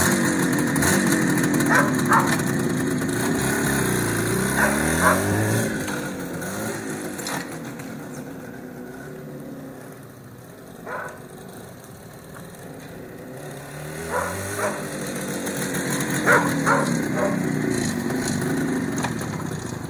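IZh two-stroke motorcycle engine revving up and down as the bike pulls away. It fades as the bike rides off, then grows louder again as it comes back over the last few seconds. A few short sharp sounds stand out over the engine.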